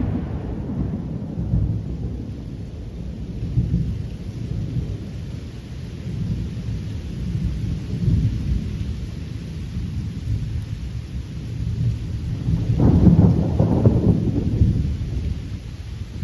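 Thunder rumbling low and continuously, with a louder roll of thunder about thirteen seconds in that fades over a couple of seconds.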